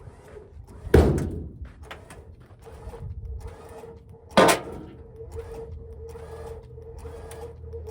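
Two loud bangs, about a second in and again about four and a half seconds in, each dying away quickly, over a steady low hum and a faint steady tone.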